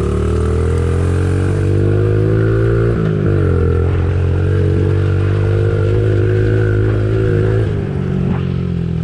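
Pit bike engine running under throttle as the bike is ridden along a dirt trail. The revs drop sharply about three seconds in and again near the end, holding fairly steady between.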